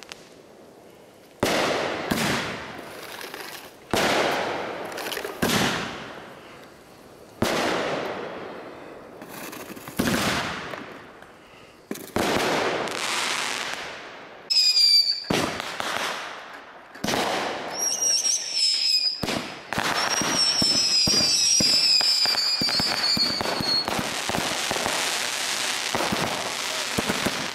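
Aerial fireworks going off in a run: loud shell bursts about every two seconds, each dying away with a long echo. Then come a few falling whistles and, over the last several seconds, dense crackling.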